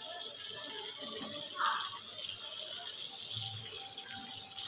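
Steady sizzle of hot oil and spices frying in a clay handi on a low gas flame as marinated chicken pieces go in, with a few faint ticks.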